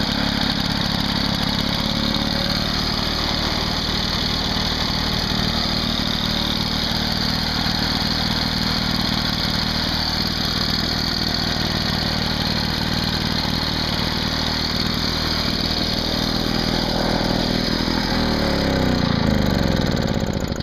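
Victa Mustang two-stroke rotary lawn mower engine running steadily, then slowing with a falling pitch near the end and stopping as it is shut off.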